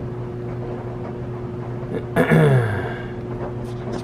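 LG front-load washing machine running with a steady, even hum, really quiet now that its four shipping bolts are out and the drum floats freely. About two seconds in, a short vocal sound falls in pitch.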